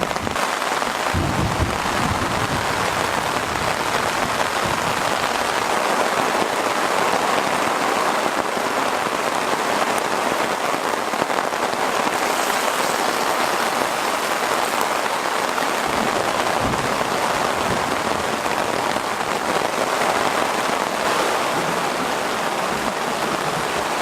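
Heavy thunderstorm rain pouring down steadily in an even hiss, with a couple of brief low rumbles.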